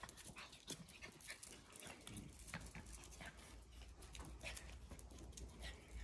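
Puppies at rough play, faint: irregular short scuffs and clicks with small dog noises, over a low steady rumble.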